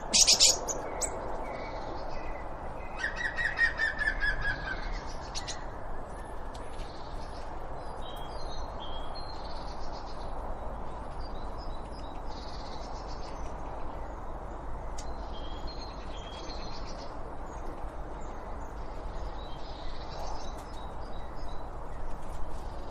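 Several wild birds chirping and calling over a steady background hiss, with short high chirps scattered throughout. There is a loud call right at the start, and a quick run of about a dozen notes around three to five seconds in.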